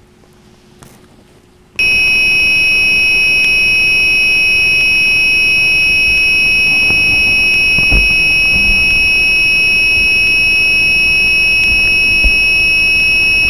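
Steady, high-pitched electronic whine made of several tones over hiss, from the 5.8 GHz FPV video link's audio channel as recorded by the ground video recorder. It starts suddenly about two seconds in, with a couple of faint knocks later on.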